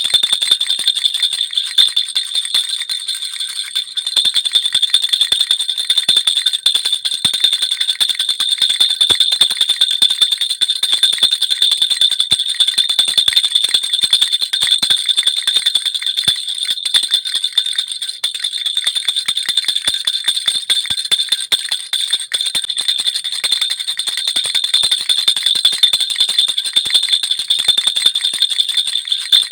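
Baby rattle (jhunjhuna) shaken without pause: a dense, fast jingling with a bright metallic ring.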